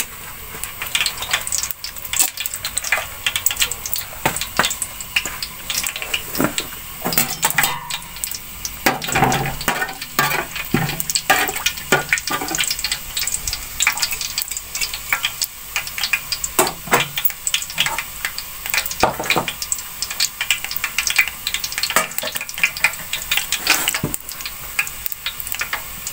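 Whole spices (cumin seeds, black peppercorns and a cinnamon stick) sizzling and crackling in hot ghee at the bottom of a large pot, a steady stream of small pops as the tadka is tempered.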